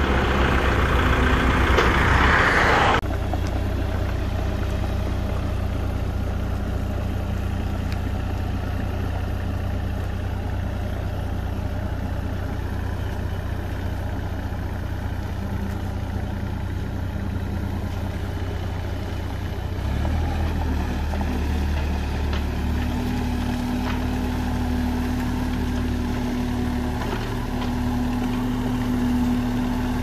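Diesel engines running steadily: briefly a Kubota compact tractor, then a Kubota mini excavator tracking over rough ground and digging. A steady higher hum joins in for the last several seconds.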